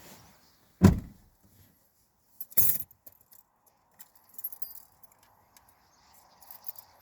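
Scattered high clicks and chirps of a large flock of starlings, with a loud thump about a second in and a short rushing burst near the middle.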